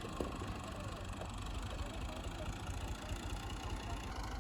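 An engine idling with a low, steady rumble.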